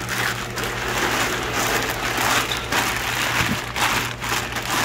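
Thin plastic shipping bags crinkling and rustling as they are handled and rolled down by hand, over a steady low hum.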